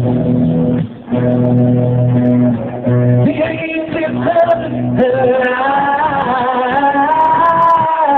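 Live rock band playing, with guitar chords and a male voice singing, holding long notes from about three seconds in. The highs are cut off, giving a dull, audience-recorded sound.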